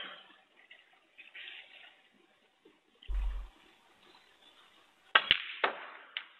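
Snooker cue striking the cue ball, followed within the next second by sharp clicks of ball on ball and a knock off the cushion, near the end. A short dull thump comes about halfway through.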